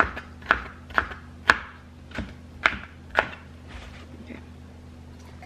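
Chef's knife chopping tomatoes on a plastic cutting board: about seven sharp knocks, roughly two a second, stopping after about three seconds, with one faint tap later.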